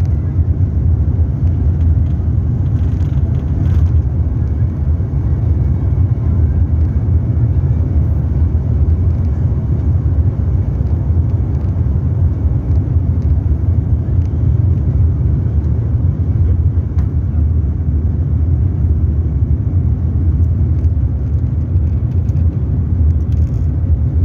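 Steady low rumble of an Airbus A300 airliner's engines and airflow, heard inside the passenger cabin.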